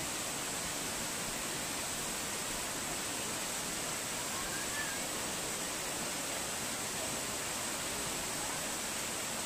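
Steady, even rushing hiss with no change in level.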